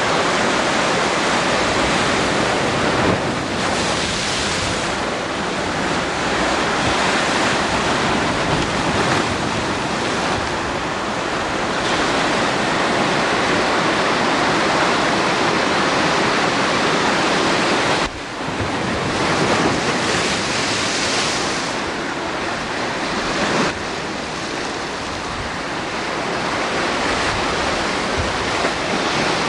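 Ocean surf washing and breaking in a continuous loud rush, with wind on the microphone; the sound drops abruptly twice, about two-thirds of the way through and again a few seconds later.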